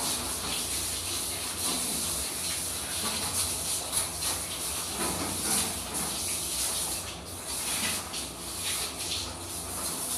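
Water from a handheld shower sprayer hissing and splashing onto a dog as it is bathed, a steady spray with a few brief splashes.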